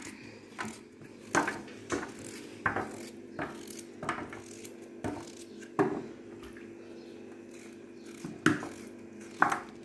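Kitchen knife slicing raw potatoes into rounds: a short sharp tap with each cut, at an uneven pace, pausing for a couple of seconds before the last few cuts.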